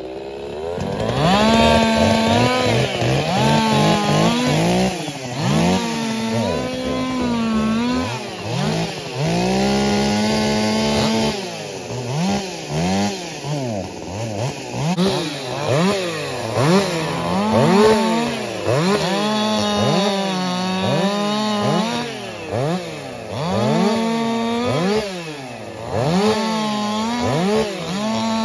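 Ported Echo CS-4910 two-stroke chainsaw cutting through a log at high revs. Its pitch holds steady through each cut, then swings up and down as the throttle is blipped between cuts, many times over.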